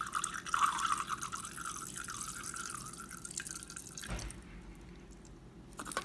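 Saline solution poured in a thin stream into a clear plastic measuring cup, trickling, and stopping about four seconds in.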